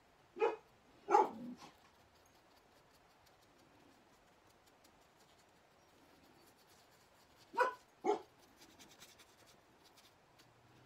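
A dog barks twice in quick succession, then twice more about seven seconds later. Between the barks, a paintbrush scratches faintly on paper.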